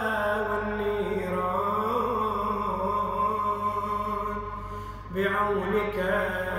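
A man's voice chanting an Arabic supplication in a slow, melodic recitation style, drawing out long notes that bend up and down. A short break for breath comes about five seconds in.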